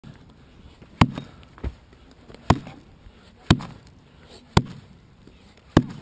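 Axe chopping into a fallen birch log: five hard strikes about a second apart, with a lighter knock shortly after the first.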